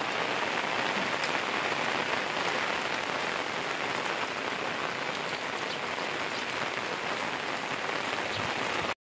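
Steady rain falling on wet ground and roofs: an even hiss with scattered drop ticks, cutting off suddenly at the very end.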